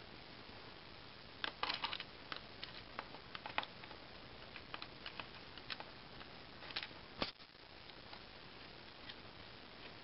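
Faint scattered clicks and taps of hands handling a plastic laptop case, a small cluster about one and a half seconds in and the sharpest tap about seven seconds in.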